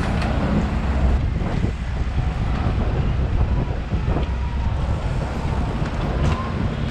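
Wind noise on a body-worn action camera's microphone while riding a bike through city traffic, over the steady sound of the traffic around it.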